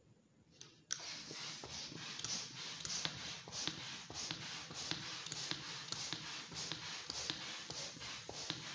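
Latex balloon deflating: air rushes out through its neck with a hiss and a rapid, irregular flapping rattle. It starts suddenly about a second in and keeps going.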